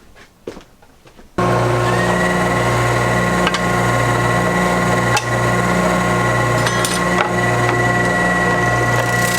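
A few faint knocks, then about a second and a half in, loud shop machinery starts abruptly: a ShopBot CNC router running steadily. A high steady whine and a lower hum pulse evenly, with a few sharp ticks over the noise.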